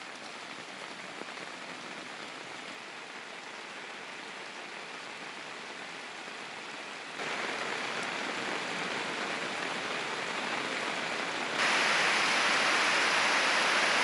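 Heavy rain pouring onto a street, a steady hiss of downpour. It grows louder in two sudden steps, about seven seconds in and again near the end.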